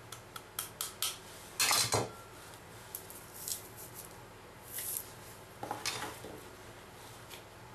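Kitchen sounds of flour going into a ceramic mixing bowl. A few light clinks come first, then a short rushing burst about one and a half seconds in as the flour is tipped in, followed by scattered soft taps and rustles.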